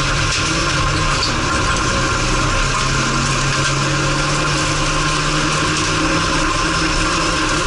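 Race car engine running hard at a steady pitch, heard from inside the stripped, roll-caged cabin of a Renault on a dirt autocross track, over a constant rush of tyre and dirt noise.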